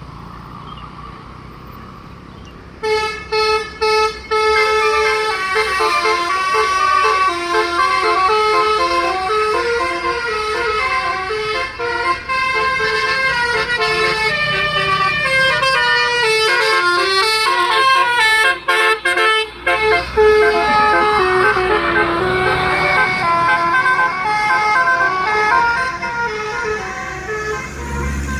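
Bus musical air horn (basuri, 'telolet') playing a tune in stepping, chorded notes. It starts about three seconds in with a few short blasts, then runs on loudly and nearly without a break, with low vehicle rumble underneath.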